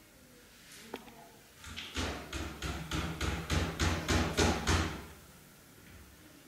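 A quick, even run of about a dozen knocks with heavy thuds, about three or four a second, growing louder and stopping abruptly after about three seconds.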